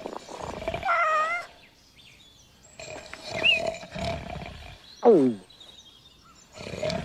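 Cartoon animal vocal effects: a wavering whine about a second in, a short rising squeak, then a long falling groan about five seconds in, with quiet gaps between.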